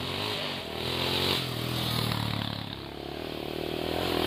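Sport quad (ATV) engine approaching on a dirt track, its note rising and falling as the rider works the throttle and getting louder as it nears.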